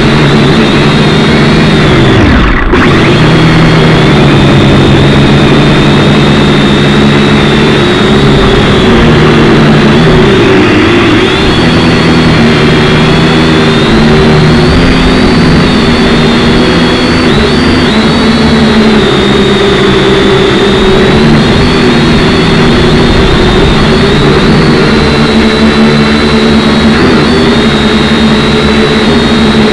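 Syma X5C quadcopter's small brushed motors and propellers whining loudly in flight, the pitch shifting up and down as the throttle changes, with a brief sudden drop about three seconds in.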